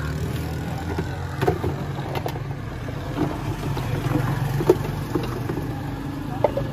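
A steady low engine hum, with scattered short knocks and clinks of a steel spoon and a plastic jug against the drink containers; the sharpest knock comes about two-thirds of the way through.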